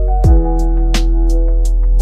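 Lo-fi background music with a steady beat: a deep kick drum, crisp hi-hat ticks and held chords.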